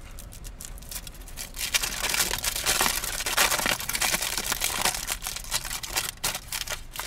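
Aluminium foil wrapper being peeled open and unfolded by hand around a burrito, crinkling and crackling, loudest in the middle.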